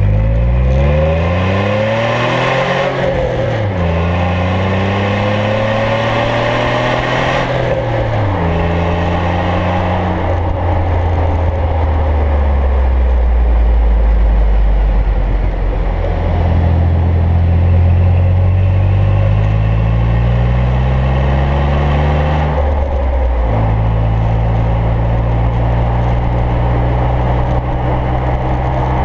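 Exhaust note of a 2008 Jeep Wrangler JK's 3.8-litre V6 through a Flowmaster 40 Series muffler, heard from under the Jeep while driving. The pitch climbs under acceleration and drops sharply three times at gear changes, then holds steady.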